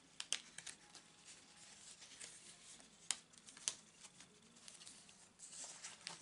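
Cardstock cards and paper being handled and shuffled by hand: faint rustling broken by a few sharp clicks and taps, the loudest a little after the start and around three seconds in.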